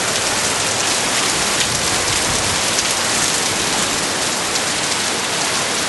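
Heavy rain pouring down in a steady, loud hiss, drops splashing on wet ground.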